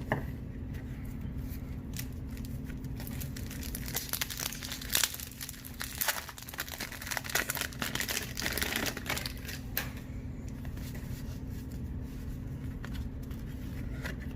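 Trading-card pack wrappers crinkling and tearing as packs are opened and the cards handled, with a busy stretch of crackling in the middle.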